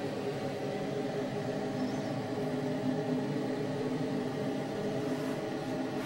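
A steady mechanical hum with several low, even tones in a small tiled room.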